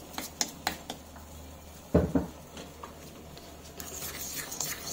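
Steel spoon mixing gelatine paste in a small stainless steel bowl: a few light clinks of spoon on bowl in the first second, a dull thump about two seconds in, then quicker scraping against the bowl near the end.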